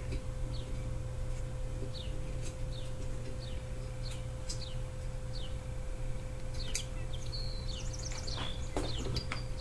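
Birds chirping in the background: short, high, falling chirps about every second, coming more thickly near the end, over a steady low hum.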